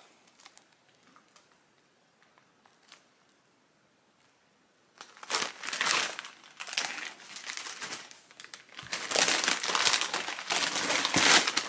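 Crinkly plastic snack bags, a large Cheetos bag among them, being handled and rustled. After a few near-quiet seconds the crinkling starts about five seconds in, in irregular bursts, and becomes louder and almost continuous for the last few seconds.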